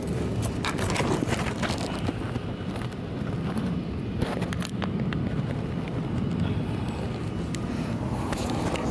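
Rustling and crinkling of hammock fabric as it is handled, heard a few times over a steady low rumble.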